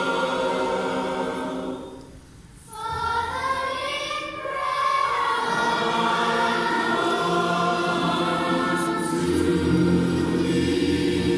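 Children's choir singing a slow song in long held notes, with a brief break about two seconds in before the next phrase begins.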